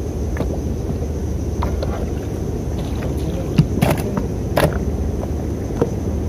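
Steady low rumble in a small boat on the water, with a few sharp knocks and clicks about three and a half to five seconds in as a small grouper is taken off the hook.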